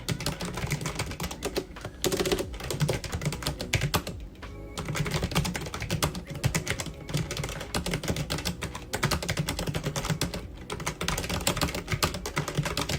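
Typing on a Logitech G915 TKL low-profile mechanical keyboard with linear switches: a fast, continuous run of keystroke clacks, with a short pause about four seconds in.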